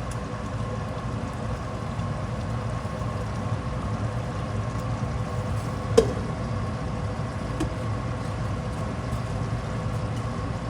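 A steady mechanical hum, with one sharp click about six seconds in.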